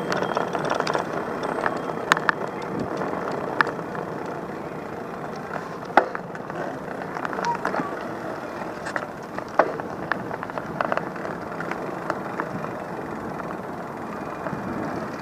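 Steady outdoor street noise, mostly passing traffic, broken by scattered sharp clicks and taps.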